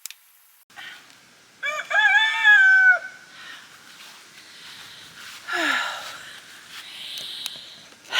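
A rooster crowing once, a single long call with a rise, a held middle and a drop at the end, about two seconds in. Fainter, shorter noises follow later.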